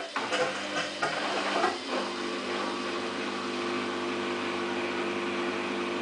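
Samsung WF8804RPA front-loading washing machine in the prewash part of its cycle: several knocks and clatters in the first two seconds, then a steady motor hum over a hissing wash noise.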